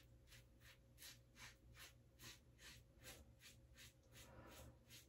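Faint scraping of a 1978 Gillette Black Beauty double-edge safety razor cutting lathered stubble on the neck and jaw, in short quick strokes about four to five a second.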